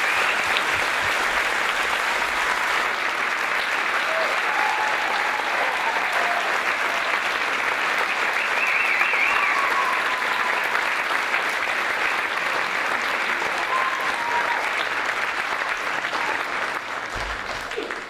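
Audience applauding at length in a concert hall, with a few high wavering cheers over the clapping. The applause dies away near the end.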